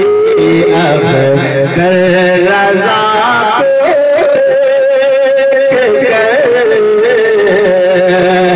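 A man singing a naat (Urdu devotional poem) into a PA microphone in long, wavering held notes, with no clear words, over a steady low drone.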